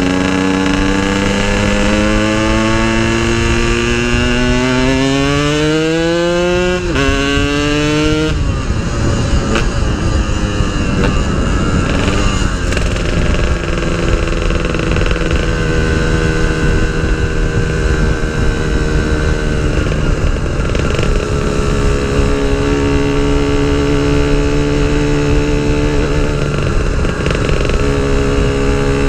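Yamaha RX-King's two-stroke single-cylinder engine accelerating hard under the rider, its pitch climbing steadily, dropping sharply at a gear change about seven seconds in and climbing again. It runs hard at high revs for several seconds, then settles into a steady cruise after about twenty seconds, on a test ride of its freshly rebuilt gearbox.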